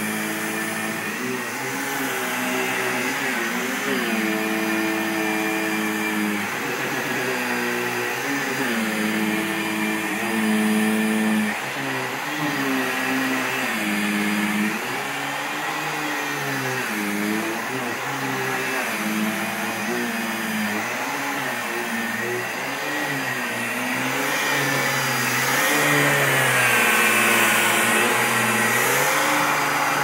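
Dyson vacuum cleaner running with its main cleaner head worked back and forth over fabric couch cushions. The motor's pitch wavers up and down as the head moves, and the sound is a little louder over the last few seconds.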